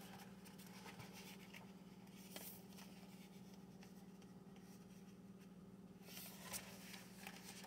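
Near silence: faint rustles of book pages being turned by hand, a few scattered ones and a few more near the end, over a steady low room hum.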